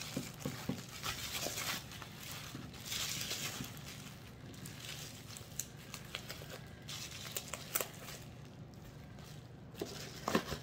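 Bubble wrap and paper crinkling and rustling as they are handled, in a few stretches of a second or so, with small scattered clicks.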